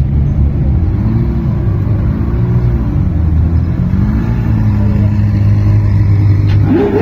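Ferrari supercar engines, led by an F12berlinetta's V12, idling and creeping past at walking pace: a deep, steady idle with a couple of gentle throttle blips. Near the end one engine revs sharply upward.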